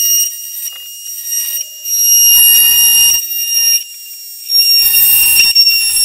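Bosch oscillating multi-tool plunge-cutting plywood, a loud high-pitched buzzing whine that comes in bursts of a second or two with short pauses between cuts. Yes, it is a horrible noise.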